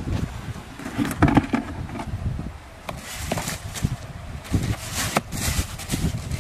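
Close handling noise: irregular knocks, scrapes and short rustles, the loudest about a second in and around three and five seconds in.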